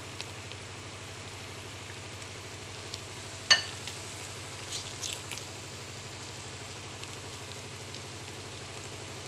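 Egg and tomato frying in a pan with a steady low sizzle while a slotted spatula stirs and scrapes through them, with a few light ticks and one sharp tap against the pan about three and a half seconds in.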